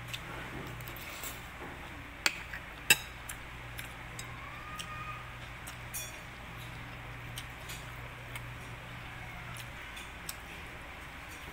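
A person eating close to the microphone: scattered small clicks and smacks from chewing, with two sharper clicks a little after two and three seconds in, over a steady low hum.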